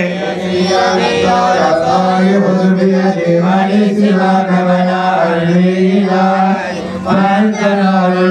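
Male voices chanting Arabic mawlid praise verses in long, drawn-out melodic lines, with a brief dip about seven seconds in.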